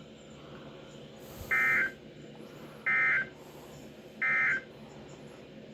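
Emergency Alert System End-of-Message data tones from a NOAA Weather Radio broadcast: three short, buzzy digital bursts, each under half a second and a bit over a second apart, over faint radio hiss. The bursts signal that the flash flood warning message has ended.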